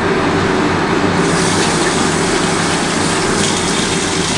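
Water being poured into a pot of cooking dal and vegetables: a steady pour that turns brighter and hissier about a second in.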